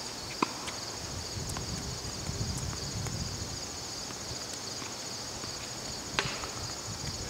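Tennis rally: a few sharp knocks of the ball off racket strings and court, the loudest about six seconds in, over a steady high-pitched insect chorus.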